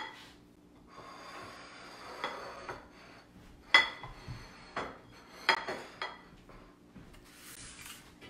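Ceramic dinner plates clinking and scraping as they are moved around on a countertop. There is a stretch of scraping, then a handful of sharp ringing clinks, the loudest about four seconds in.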